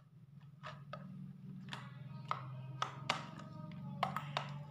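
Soft background music with a steady low drone. Over it, several sharp sticky clicks and squelches come from slime being kneaded by hand in a plastic bowl. The slime is still sticky from too much water.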